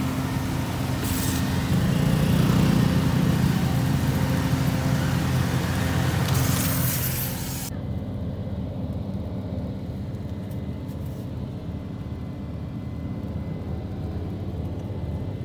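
Car engine idling, heard as a steady low hum. For the first eight seconds a loud rushing hiss from outside covers it, then the hiss cuts off suddenly and only the engine hum is left.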